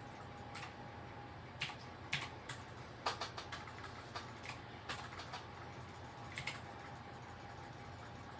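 Pencil drawing on paper: irregular short strokes and taps of the lead on the sheet, a few louder ones in the first half, over a faint steady hum.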